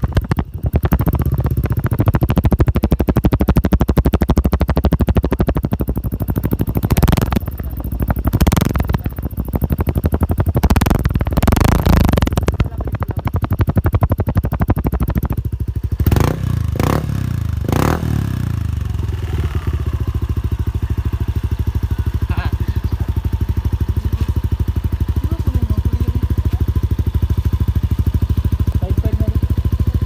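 Yamaha NMAX scooter's single-cylinder engine running through a JVT aftermarket power pipe exhaust. The throttle is blipped and revved repeatedly for about the first eighteen seconds, then the engine settles into a steady idle.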